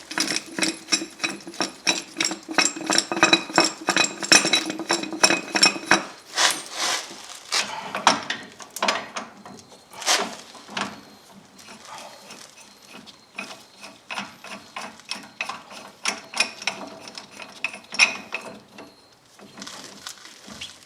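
Ratchet clicking in quick runs as the screw of a ball joint press is snugged up against the adapter cups to start a lower ball joint into the control arm, with metal clinks from the press.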